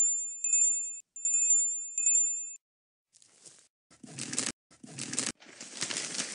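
A high bell-like chime rings four times in two pairs, each ring fading away, marking a sponsor's parachute gift dropping in. From about three seconds in come four short rustling noises, the last one the longest.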